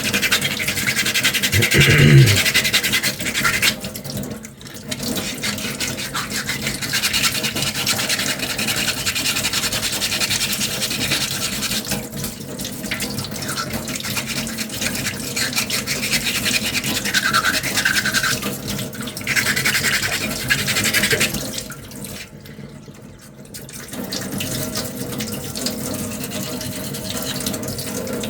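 Sandpaper scrubbing back and forth by hand on a 3D-printed plastic armour piece: a steady rasping hiss, stopping briefly twice and for a longer pause a little over three quarters of the way in.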